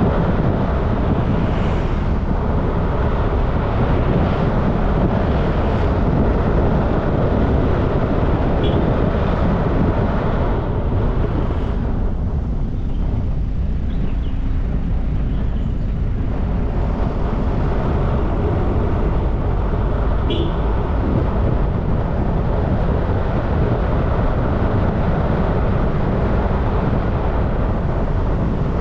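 Steady wind rush and road noise from a moving vehicle riding along, with a few faint short high chirps.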